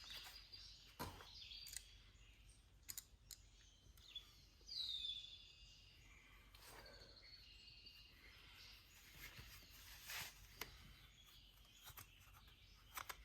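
Near silence, broken by a few faint clicks of small metal parts being handled at the mower's axle, and one short falling bird chirp about five seconds in.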